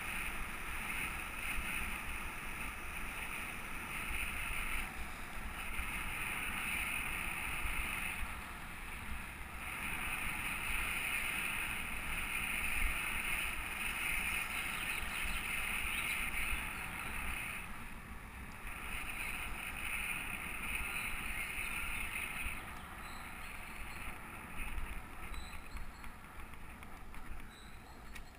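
Bicycle riding along an asphalt road, the wind and tyre noise of the ride heard on a bike-mounted camera's microphone, with a high hiss that comes and goes every few seconds.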